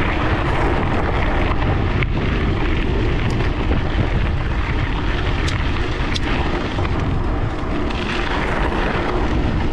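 Wind buffeting a bike-mounted GoPro's microphone at speed, with the bicycle's tyres rolling over a gravel forest road. Two sharp ticks a little past the middle.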